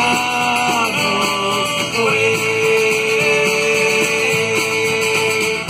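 Live band of acoustic guitar, electric bass and drums playing the closing bars of an Irish drinking song, ending on a long held note from about two seconds in.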